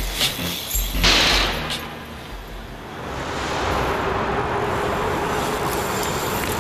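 A BMX bike lands hard on pavement about a second in, a short loud clatter. After that comes a steady rush of road traffic noise with a faint hum.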